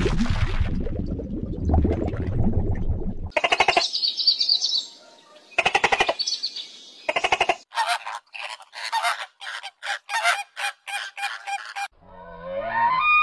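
A run of different animal calls. First a dense low rumbling noise, then pitched calls with a buzzy edge, then a quick series of short calls about three a second. Near the end comes a call that slides up and down in pitch.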